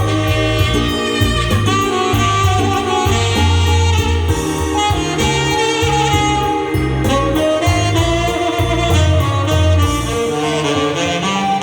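Tenor saxophone playing a slow melody over a backing track of bass, drums and keyboards.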